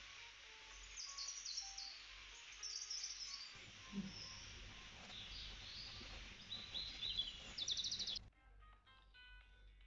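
Birds chirping over a steady hiss, with a few faint melodic notes. About eight seconds in it cuts off abruptly to a quiet plinking music tune.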